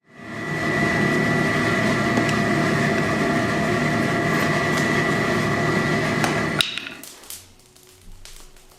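Steady machine-like drone with a constant high whine, cutting off abruptly about six and a half seconds in, followed by faint light clinks.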